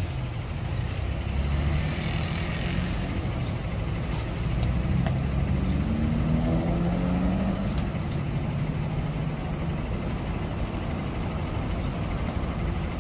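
Street traffic at an intersection: a steady engine rumble, with one vehicle's engine rising in pitch about six seconds in as it drives off.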